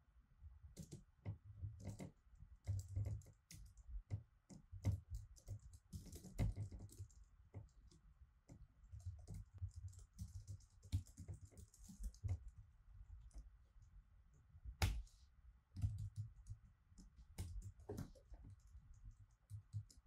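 Typing on a computer keyboard: irregular runs of keystrokes with short pauses, one key hit louder about fifteen seconds in.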